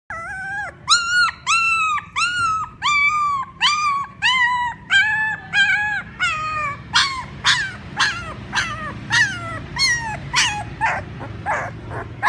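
Puppy crying: a run of high-pitched whines, about two a second, that turn into shorter, quicker falling yelps about halfway through. These are the calls a puppy makes for its mother.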